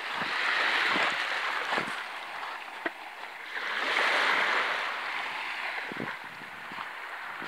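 Small sea waves washing in on a pebble shore, swelling and fading twice, with a few scattered crunches of footsteps on the pebbles.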